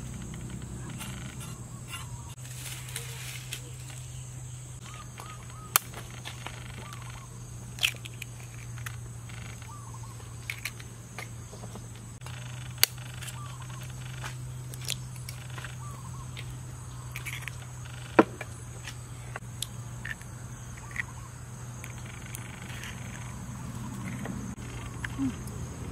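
A few sharp taps several seconds apart, as eggs are cracked on the rim of a steel mixing bowl, over a steady high insect drone, a low hum and small scattered chirps.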